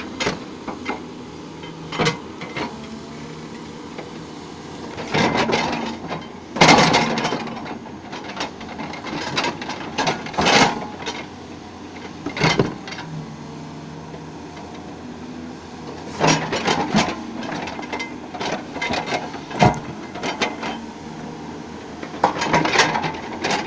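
Hydraulic excavator running steadily, with irregular knocks and clatters as its steel bucket moves and strikes earth and stones, some in quick clusters.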